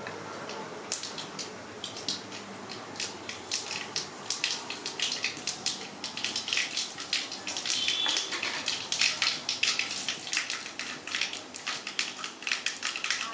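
Seeds crackling and spluttering in hot oil in an aluminium kadai, a tadka being tempered. The popping starts about a second in and grows denser and louder from about the middle, with green chillies and curry leaves frying in the oil.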